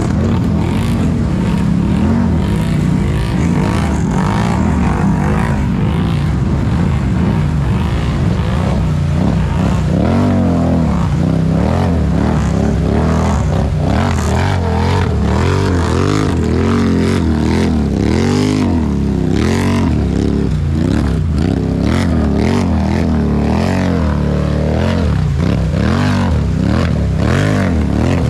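Several ATV engines revving up and down at once, their pitches rising and falling constantly.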